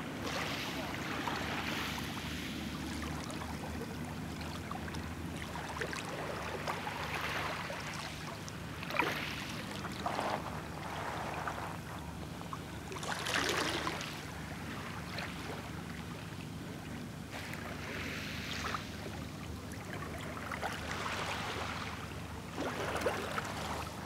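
Sea waves washing onto the shore, a swell of surf every few seconds over a steady low rumble.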